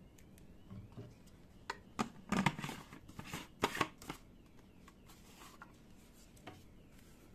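Clicks and scraping of hard plastic as the plastic paint container is screwed onto the lid of an electric paint sprayer, clustered from about one to four seconds in, then a few faint taps.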